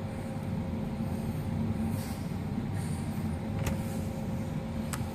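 Steady low rumbling hum with three faint light clicks.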